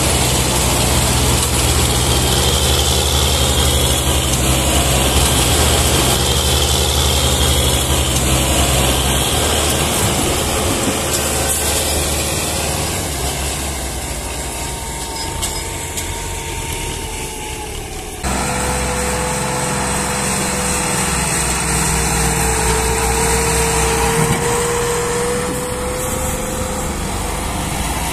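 Massey Ferguson 260 tractor's three-cylinder diesel engine running hard, pulling a loaded sugarcane trolley, with a steady whine over the engine. The sound changes abruptly about two-thirds of the way through.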